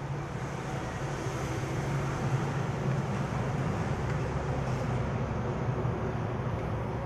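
Hairdryer's small fan motor running under power with a steady low hum and the rush of air from its fan, building up a little at first. It is a test run after repair: the fan now spins.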